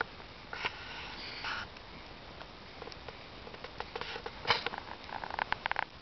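Log bonfire crackling, with scattered sharp pops and short hissing spurts from the burning wood. The loudest pop comes about four and a half seconds in, followed by a quick run of crackles.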